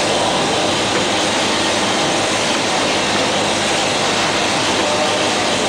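A rotary PET-bottle filling machine running, giving a steady mechanical noise with a dense clatter and hiss that does not let up.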